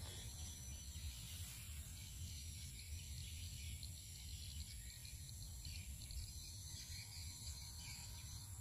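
Faint steady background noise: a low hum with a thin high-pitched hiss, and no speech.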